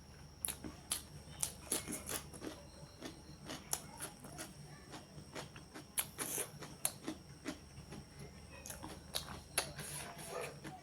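Close-miked eating: a person chewing chicken curry, with irregular wet mouth clicks and smacks a few times a second. A faint steady hum runs underneath.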